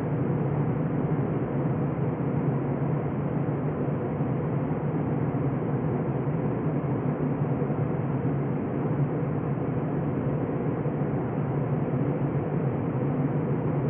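Steady cabin noise of an Airbus A321 in flight, heard from a window seat over the wing: the jet engines and the airflow past the fuselage make a continuous, even rumble that does not change.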